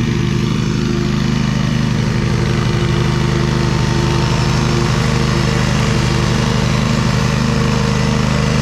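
Riding lawn mower engine running steadily at full throttle with the mower blades engaged, cutting grass: a loud, even engine drone.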